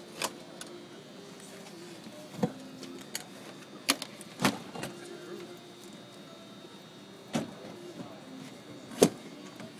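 Knocks and clunks of a Porta-Bote seat being fitted into the boat's folding polypropylene hull. About six sharp knocks come spread out, the loudest near the end.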